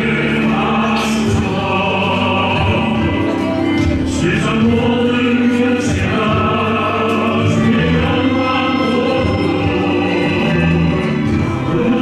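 A choir singing a Christian worship song with instrumental accompaniment, in long held notes.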